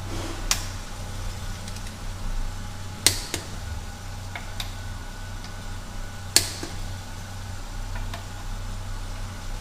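A click-type torque wrench clicking off as the wheel bolts reach 12 kgf·m: four sharp clicks, two of them close together, over a steady low hum.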